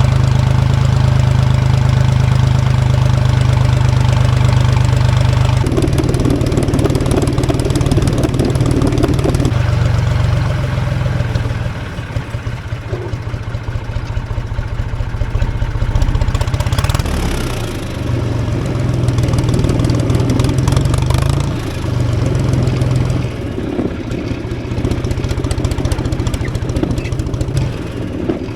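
Tractor engine running at a steady, loud level. Its pitch and load shift several times: a change about six seconds in, a dip around twelve seconds, and further changes later.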